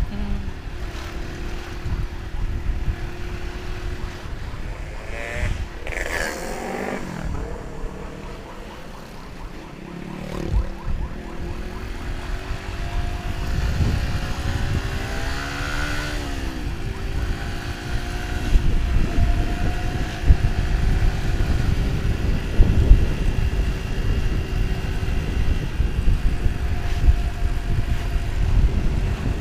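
Motorcycle running under way in traffic, with a low rumble of wind and road noise on the microphone. A pitched sound rises and falls a couple of times, and the sound grows a little louder past the middle.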